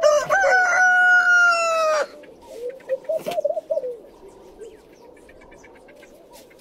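A rooster crowing once, a loud held call of about two seconds that cuts off sharply, followed by a run of softer, quick bird calls.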